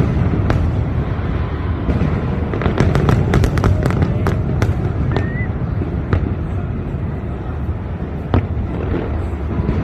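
Fireworks going off in quick succession, sharp cracks and pops bunching into a dense crackling flurry a few seconds in, then thinning to single pops, over a steady low rumble.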